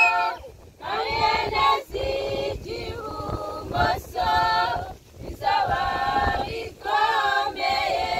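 A group of young women singing a Christian choral song without instruments, in short held phrases separated by brief breaks for breath.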